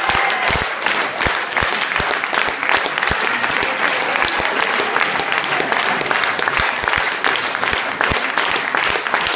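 A crowd applauding: many people clapping at once, a dense patter of claps with a few louder single claps standing out.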